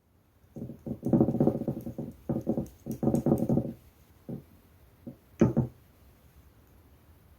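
Pink clear slime being squeezed and pressed, giving a run of loud, buzzing squelches as air pockets are forced out, then three short separate pops.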